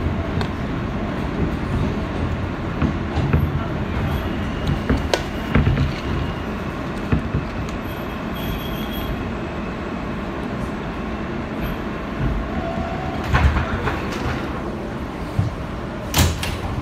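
Inside an R160B subway car pulling into a station: steady running noise of wheels on rail and the car's motors, with scattered clicks and a light wheel squeal. Near the end come a couple of sharp knocks.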